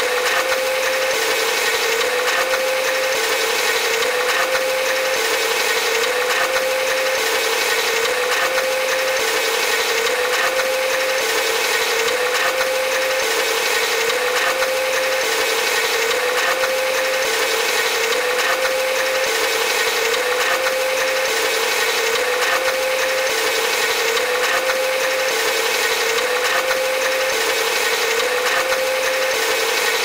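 Taiwan Railways passenger train running noise: a steady, loud rushing noise with a hum that steps back and forth between two pitches about once a second.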